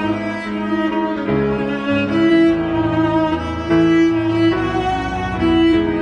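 Background music: bowed strings playing slow, held notes that change about once a second.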